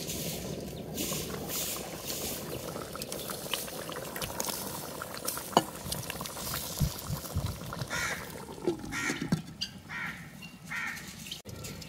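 Liquid boiling in a clay cooking pot, with a few knocks from the clay lid being lifted and set back. Crows cawing in the background, mostly in the later seconds.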